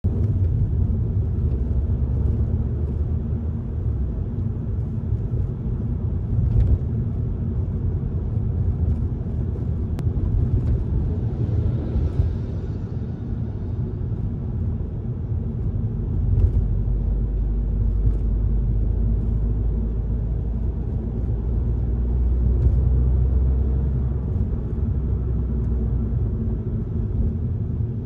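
Alfa Romeo MiTo driving slowly in traffic, heard from inside the cabin: a steady low rumble of engine and road noise, with a few faint clicks.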